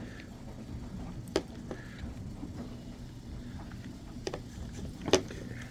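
Three sharp clicks and knocks from small parts of a chainsaw recoil starter being handled, the loudest near the end, over a low steady hum.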